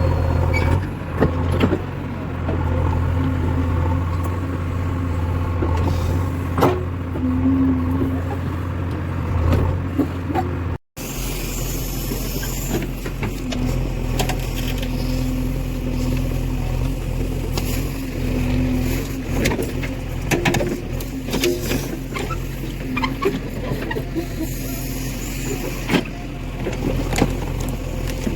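Backhoe loader's diesel engine running steadily, with scattered knocks and clanks. The sound drops out for an instant about eleven seconds in, then resumes with a deeper engine note.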